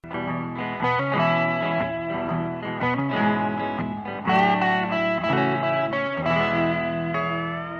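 Intro music: a guitar playing a short run of plucked notes and chords, ending on a held chord that rings out near the end.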